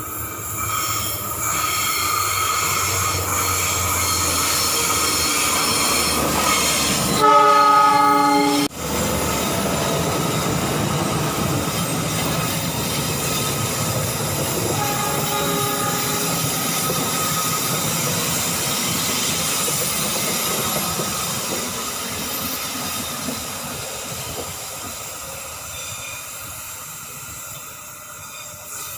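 Pangrango passenger train running into a station. Its locomotive horn sounds once, a chord of several tones held for about a second and a half, about seven seconds in. The rumble and wheel-on-rail noise carry on throughout and fade near the end.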